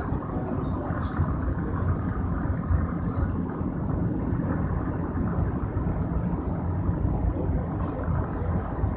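Steady low rumble of a vehicle driving, heard from inside the cabin: engine and road noise.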